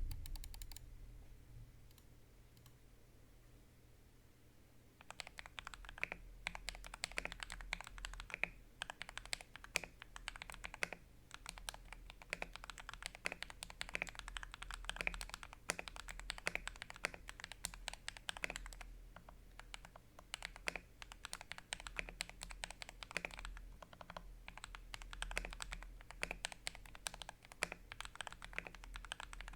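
Typing on a 60% mechanical keyboard, a Fantech Maxfit 61 in an acrylic case fitted with pre-lubed Akko CS Radiant Red linear switches. Near silence for the first five seconds, then a fast, continuous run of keystrokes.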